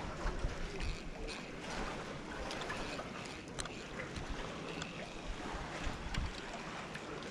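Sea waves washing on a sandy shore, with irregular low gusts of wind rumbling on the microphone and a few faint clicks.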